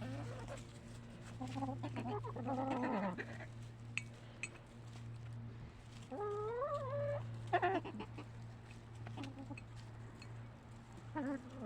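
Domestic hens clucking, with a handful of separate calls spread through the stretch, one of them longer and wavering about six seconds in. A steady low hum runs underneath.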